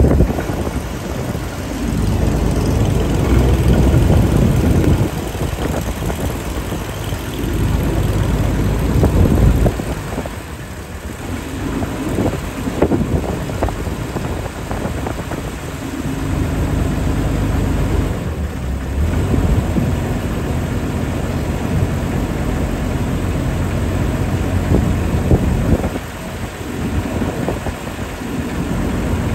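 Boat engine running steadily while under way, mixed with wind buffeting the microphone and water rushing past the hull, the rumble swelling and easing in gusts.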